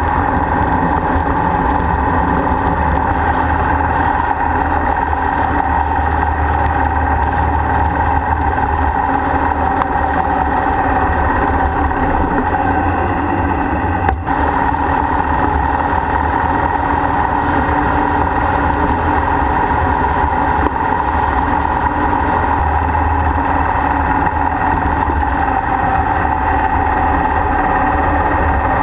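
Motorcycle engine running steadily at road speed, heard from a camera mounted on the moving bike, with a constant rush of wind and road noise. There is a brief break about halfway through.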